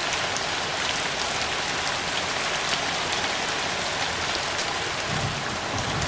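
Heavy rain falling steadily: an even hiss with scattered ticks of single drops.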